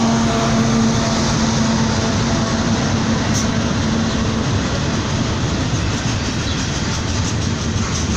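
Freight train led by Ferromex and BNSF diesel locomotives running by, a steady loud rumble of wheels and rail noise. A steady low drone runs under it through the first half and stops about halfway, and light wheel clicks come through near the end.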